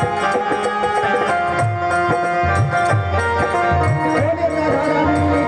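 Instrumental music of a Hindi devotional bhajan with no singing: held melody notes over a steady drum beat.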